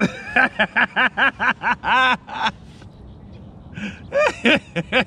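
A man laughing hard: a quick run of 'ha-ha' pulses for about two and a half seconds, a pause, then another short burst of laughter about four seconds in.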